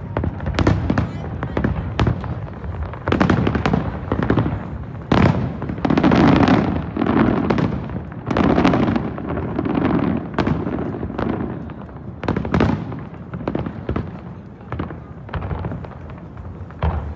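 Aerial fireworks shells bursting in quick succession, a steady run of sharp bangs and crackles, with a heavier barrage of booms in the middle.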